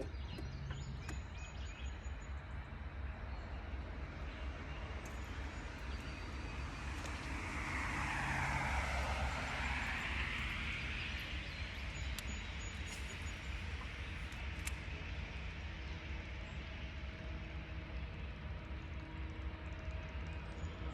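Steady low rumble, with a passing engine that swells and then fades about eight to eleven seconds in, its pitch sweeping down and back up as it goes by.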